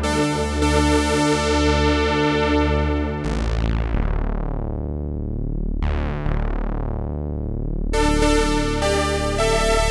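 Oberheim OB-X8 analog polyphonic synthesizer, played dry, holding chords over a pulsing bass. About three and six seconds in, new chords are struck whose bright top quickly fades away, and a bright chord returns near the end.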